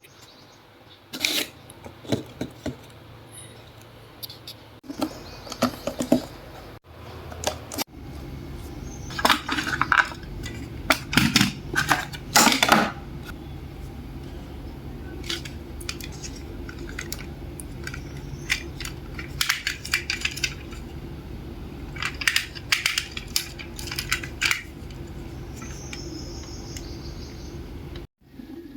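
Hands handling a die-cast model car and its packaging: bursts of small clicks, taps and light metallic clinks, coming in clusters, over a steady low hum that starts about eight seconds in.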